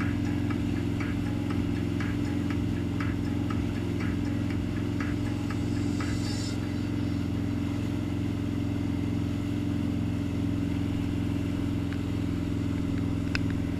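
Steady drone of the X-35 wake boat's inboard engine running under way, pulling a wakesurfer, with the rush of the wake behind it. A brief hiss about six seconds in and a sharp click near the end.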